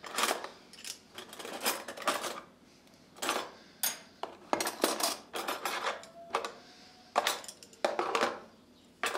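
Metal kitchen utensils clinking and rattling against each other and a plastic cutlery organizer tray as they are set into a drawer, in a string of short clatters with brief pauses.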